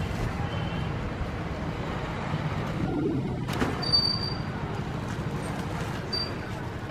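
Steady low background rumble, with two brief high bird chirps about four seconds in and again near six seconds.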